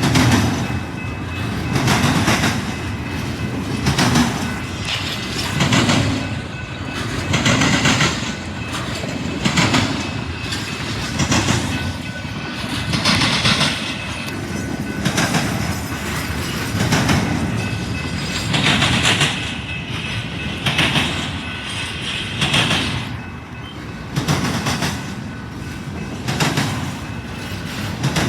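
Train cars rolling past, their wheels clattering over the rail joints in a regular beat about every two seconds.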